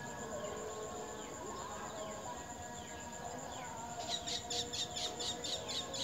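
Night insects, crickets, trilling with a steady high tone. About four seconds in, a quick run of sharp, high chirps, about five a second, starts over it.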